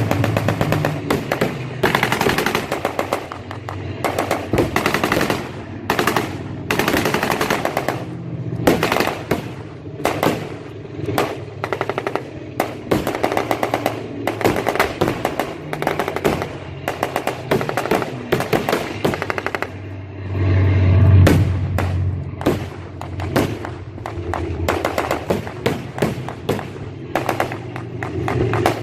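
Rapid, irregular bursts of simulated machine-gun fire in a staged air-raid re-enactment: dense sharp cracks throughout, with a heavier boom at about 21 seconds in.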